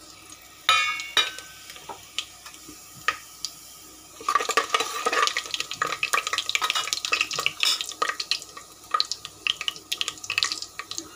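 Whole garam masala spices (bay leaf, cinnamon) frying in hot oil in a pressure cooker pot, sizzling and crackling while being stirred. A single metal clink rings about a second in, and the sizzling and crackling grow loud from about four seconds in.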